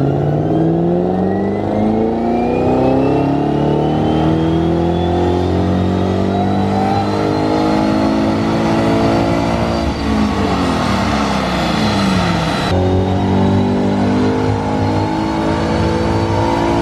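Shelby GT500 Mustang's supercharged V8 making a full-throttle pull on a chassis dyno. The revs climb steadily for about ten seconds, drop away as the throttle is lifted, and the engine then runs on at a lower, steady speed.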